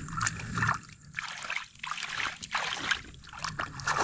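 Creek water sloshing and splashing through a wooden-framed sifting screen as it is dunked and shaken to wash gravel, in a run of irregular splashes.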